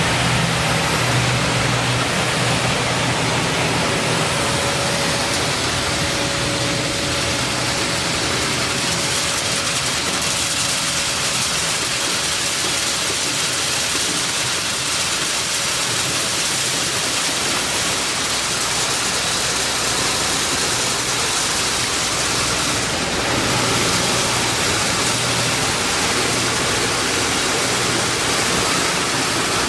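Maize milling machine running steadily: a loud, even rushing noise over a low hum.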